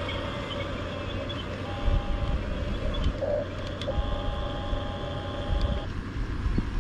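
Hunia 1569 RC bulldozer's small electric motors whining steadily in short runs, cutting off about six seconds in, over a low rumble.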